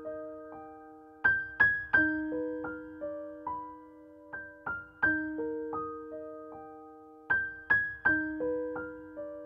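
Slow, gentle piano music: single notes struck one after another and left to ring over a held low note, the same broken-chord phrase coming round about every three seconds.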